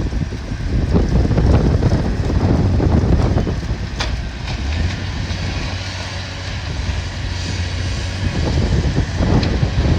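Wind buffeting the microphone over the steady running of heavy demolition equipment's diesel engine, with one sharp knock about four seconds in.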